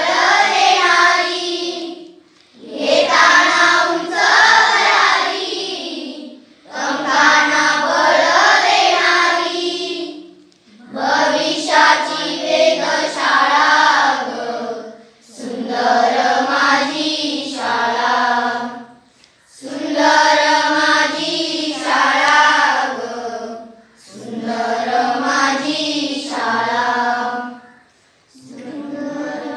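Schoolchildren singing a Marathi school prayer song together, in phrases of about four seconds with short breaks between them.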